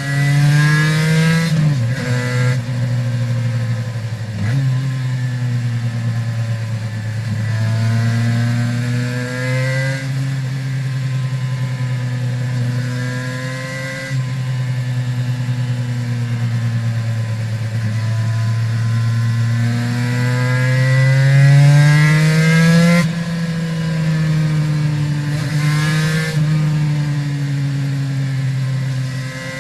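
Aprilia RS 250 two-stroke V-twin with Arrow exhausts riding under load, its pitch climbing as it revs up and falling back, with sudden sharp drops in revs a couple of times early on and again about two-thirds of the way through.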